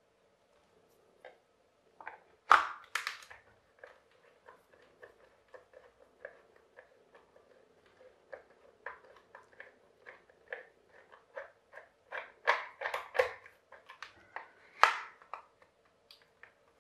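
A screwdriver working at the plastic housing of an electric hand blender: a string of small clicks and scrapes, one or two a second, with a few louder knocks about two and a half seconds in and again near the end.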